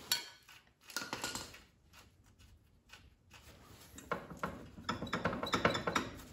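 Metal clinks near the start, then irregular rattling and scraping from about four seconds in as the rusted front brake drum of a 1964 Impala is wiggled and pulled by hand on its spindle without coming off.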